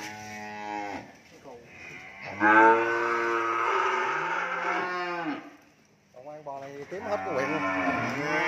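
Cattle mooing in several calls. The longest and loudest starts about two seconds in and lasts about three seconds, with shorter moos after it.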